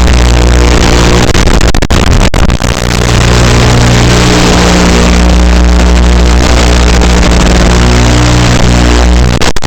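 Loud background music with sustained notes and heavy bass.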